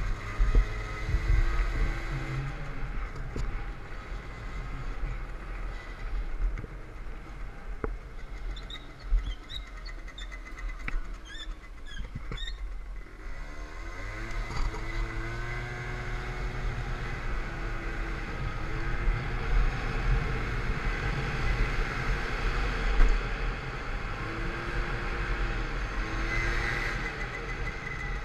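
A Peugeot Vivacity 50cc scooter's engine running on the road, its variator and rollers modified to lift the speed restriction, with wind rumbling on the microphone. The engine note falls away as the scooter slows almost to a stop around the middle, then rises again as it pulls away.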